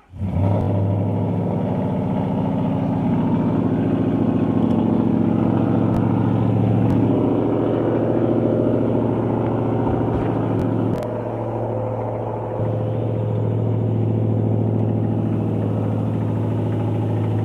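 2012 Mustang GT's 5.0 L Coyote V8 catching right at the start and settling into a steady idle, with a short drop in level around eleven seconds in. The owner hears a knock from the bottom end of the engine and suspects rod knock.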